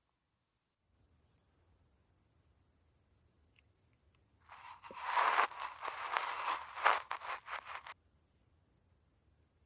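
Close-miked crinkling and crackling of something being handled, lasting about three and a half seconds and stopping abruptly, after a few faint clicks.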